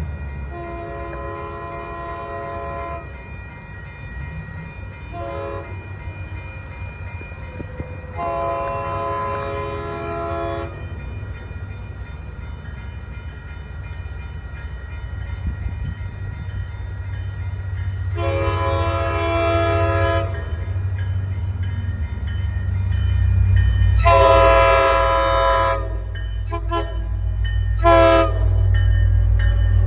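EMD F40PH diesel locomotive sounding its horn in a series of long and short blasts, the short ones coming closer together near the end. Under the horn the locomotive's diesel engine rumbles, growing louder from about halfway as the train approaches.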